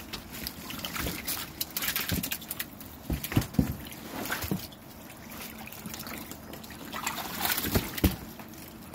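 Live tilapia flapping in shallow water in a tub as hands sort through them: irregular splashing and sloshing, quieter for a couple of seconds in the middle.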